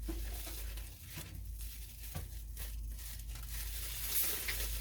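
Plastic bag of hot pho broth crinkling as it is handled and poured, with a hissing splash of liquid building up near the end.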